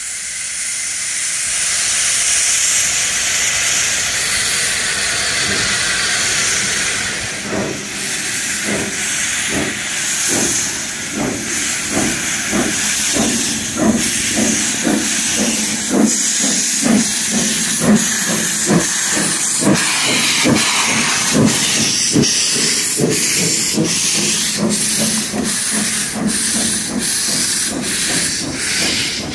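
Steam locomotive 1077 pulling away from the station: a steady hiss of steam blowing from its open cylinder cocks, then from about eight seconds in a regular chuffing exhaust that slowly quickens as the train gathers speed.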